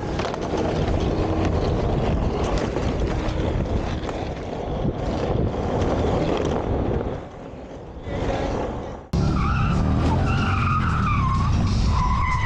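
Skateboard wheels rolling on a concrete bowl, a steady rough rumble that eases off briefly near the middle. About nine seconds in it cuts abruptly to a motorcycle running at highway speed: engine and wind noise with a wavering whine over it.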